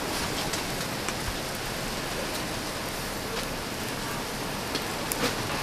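Salmon fillets sizzling over a charcoal grill: a steady hiss with scattered sharp crackles and pops.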